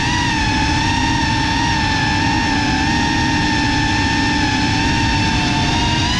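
FPV quadcopter's brushless motors and propellers whining at a fairly steady pitch, rising briefly near the end, over a low rush of air noise, heard close from the drone's onboard camera.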